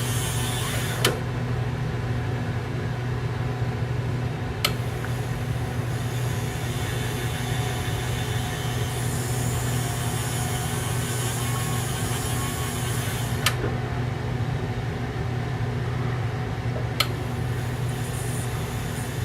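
Motor of a graver sharpening machine running steadily with a low hum while the heel of a hand graver is polished against a spinning rubber wheel. Four sharp clicks come several seconds apart.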